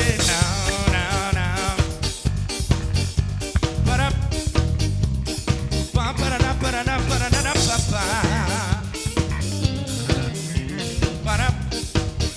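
Live band playing an instrumental break in an upbeat ska/reggae groove: drum kit keeping a steady beat under guitar, with no vocals.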